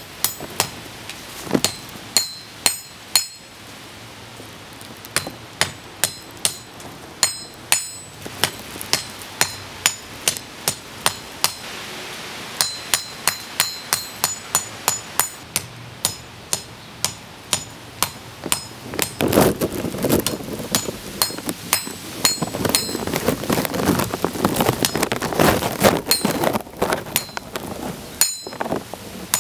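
Hand hammer striking a red-hot blade of farrier's rasp steel on an anvil: a steady run of blows, a few a second, each with a bright metallic ring. From about two-thirds in, a louder, rougher noise runs beneath the blows.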